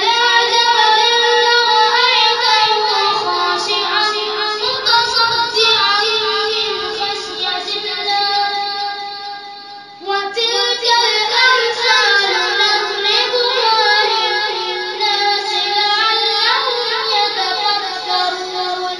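A high voice reciting the Quran in a melodic chant, holding long, ornamented phrases, with a brief breath pause about ten seconds in.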